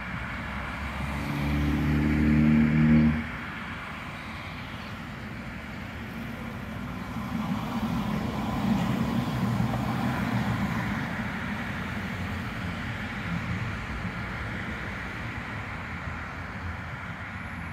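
Duewag GT8Z high-floor tram passing on a grass track, its running noise swelling to a peak about eight to ten seconds in and fading as it moves away, over a steady hiss of road traffic. Earlier, from about one to three seconds in, a loud steady low-pitched tone is the loudest sound and cuts off suddenly.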